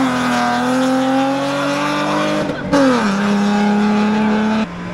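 Rally car engine held at high revs, its note climbing slowly, then falling about three seconds in and holding at a lower pitch. The level drops suddenly near the end.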